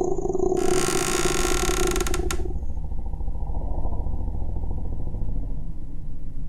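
A creak lasting about two seconds, made of rapid fine clicks and ending in a sharp click, over a low rumbling drone that carries on after it: a haunted-house horror sound effect.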